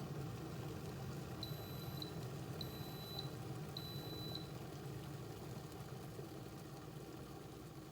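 Govee smart electric kettle beeping three times, each beep high and about half a second long, over a steady low hum.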